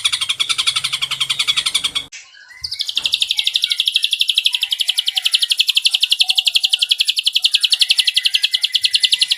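Ashy drongo singing a long, rapid trill of fast, evenly repeated high notes, broken by a short gap about two seconds in.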